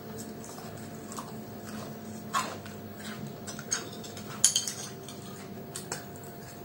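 A spoon clinking and scraping on a plate as people eat, a few scattered clicks, the loudest a little past halfway, over a faint steady hum.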